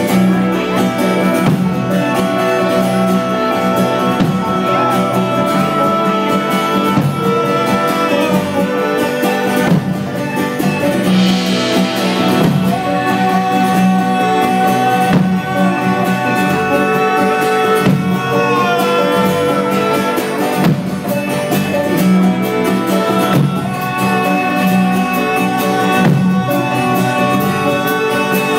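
Live instrumental band music: plucked guitar under layers of long held notes, dense and steady throughout. About eleven seconds in, a brief hissing swell rises over it.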